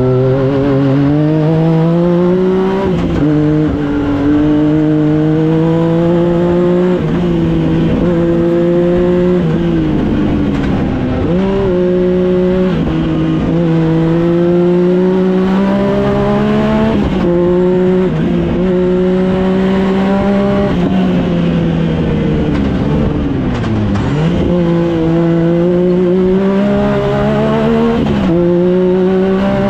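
Yamaha Viper snowmobile's 1050 three-cylinder engine, swapped into a YXZ1000R side-by-side, running hard at high revs as it is driven fast on a dirt trail, heard from inside the cab. Its pitch climbs slowly, then drops sharply and climbs back about eight times as the throttle comes off and goes back on.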